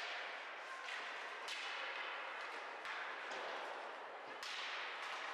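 Ice hockey play: a few sharp cracks of sticks and puck striking, over the steady scraping hiss of skates on the ice.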